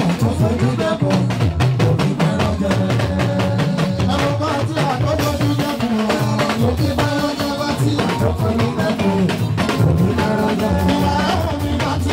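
Live band music with a steady drum and percussion rhythm, and a man singing into a microphone over a PA.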